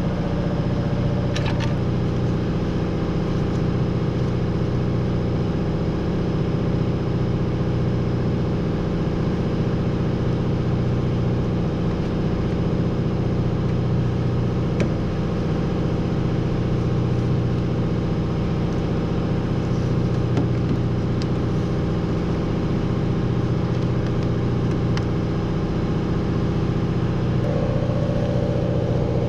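A steady low mechanical hum with several steady tones in it, swelling slightly every couple of seconds, and a few faint metallic clicks from hand tools on the engine.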